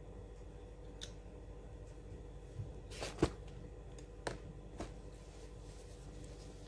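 A few short crackles and taps from hands handling food at the table, the loudest a little over three seconds in, over a steady low hum.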